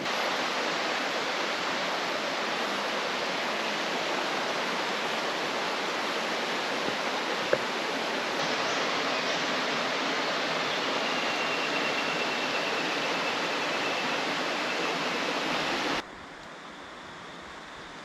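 Rushing creek water, a steady even rush. It drops sharply quieter about sixteen seconds in.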